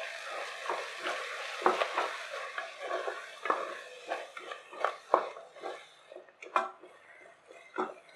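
A wooden spatula stirring a thick masala paste in a stainless steel pressure cooker, with repeated scrapes and knocks against the pot. A light sizzle sounds under the first few seconds, then fades.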